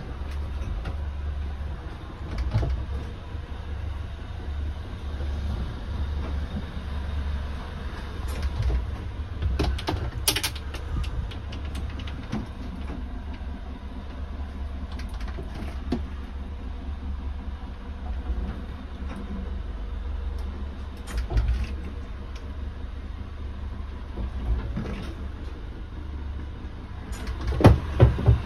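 A steady low rumble with scattered clicks and knocks. About a third of the way in, a brass latch and a wooden-framed mirrored cabinet door are opened, giving a cluster of clicks. A louder cluster of knocks comes near the end.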